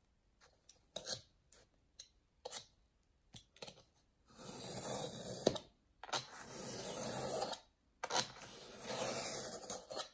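Utility knife blade drawn along a steel ruler, cutting through sanded pastel paper and foam core board. A few light clicks come first as the ruler and blade are set, then three long cutting strokes of about two seconds each, starting about four seconds in.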